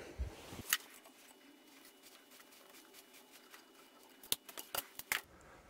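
Faint metallic clicks from a valve spring compressor being backed off on a Chrysler Slant Six cylinder head, letting the valve spring up so the tapered keepers seat in the retainer. One click comes under a second in, then a quick run of several clicks near the end.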